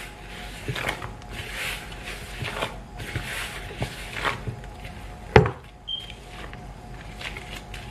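Gloved hands kneading dough in a mixing bowl: irregular rubbing, squishing strokes with light knocks against the bowl, and one sharp knock about five seconds in.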